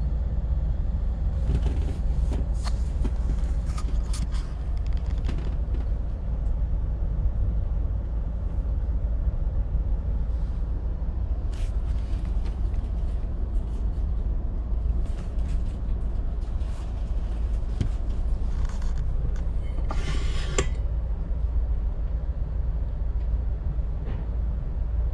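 Deutsche Bahn ICE 1 electric high-speed train running, heard from inside the carriage: a steady low rumble with scattered creaks and rattles, and a short burst of hissing noise about twenty seconds in.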